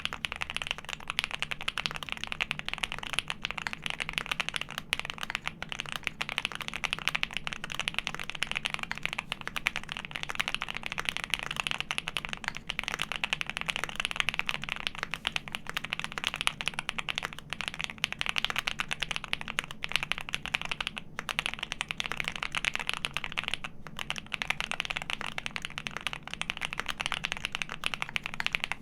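A custom mechanical keyboard with lubed Alpaca linear switches on a polycarbonate plate, split 65 g springs and GMK ABS keycaps, being typed on quickly and without letup: a dense stream of keystroke clacks. It pauses briefly twice, about two-thirds of the way through.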